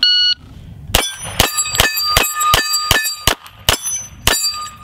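An electronic shot timer's start beep, then a CZ P07 pistol fired in a fast string, about two or three shots a second, at a rack of steel plates. The plates clang and ring after the hits. The last shot comes about 4.25 s after the beep.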